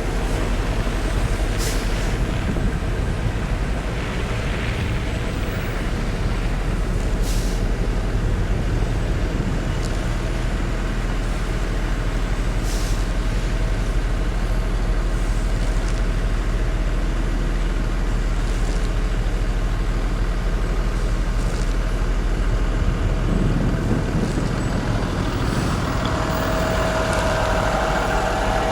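Heavy vehicle's engine running steadily in traffic, with several short air-brake hisses a few seconds apart. Near the end a steadier mid-pitched tone joins in.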